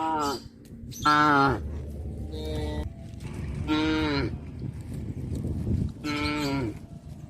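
Cattle mooing: about five short calls one after another, each bending down in pitch at its end, the loudest about a second in.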